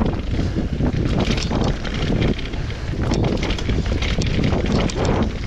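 Wind rushing over a mountain biker's action-camera microphone during a trail descent, over tyre noise on dirt and frequent irregular clatter and knocks from the bike over bumps.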